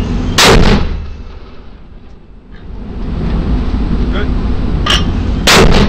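Two loud booms of heavy weapons fire, about five seconds apart. Each comes about half a second after a sharper crack, over a steady low rumble.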